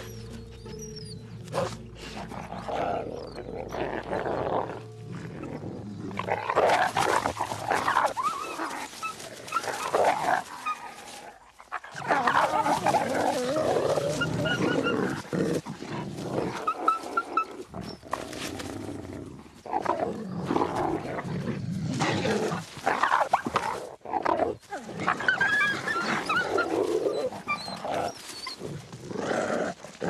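Grey wolves fighting, snarling and growling in repeated rough bursts, with short breaks about a third and four-fifths of the way through.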